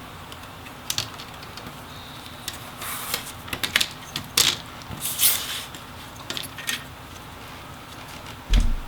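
Plastic snap clips on an Asus Zephyrus GX501V laptop's display back cover popping loose as it is prised off the bezel by hand: a run of irregular sharp clicks and cracks. A dull thud near the end.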